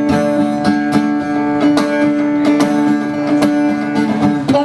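Guitar strummed in a steady rhythm, with a sustained chord ringing under the strokes.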